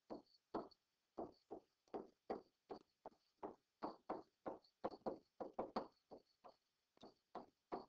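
Faint, quick, irregular taps and short scratches of a stylus writing by hand on a pen screen, about three strokes a second.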